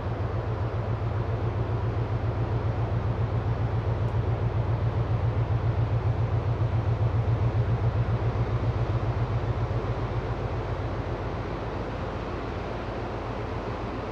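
Low, rhythmic throb of the Ro-Ro cargo ship Cape Orlando's engine and propeller carrying across the river as it passes. The pulse is rapid and even, swells to its loudest about halfway through, then eases off.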